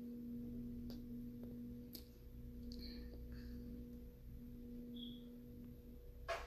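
A single steady held tone from the background music, quiet, ending shortly before the music picks up again. A few faint clicks and a short high chirp sound over it.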